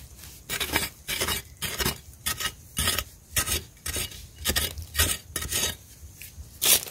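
Long-handled digging blade scraping and jabbing into dry, sandy soil in quick repeated strokes, about three a second, the loudest one near the end.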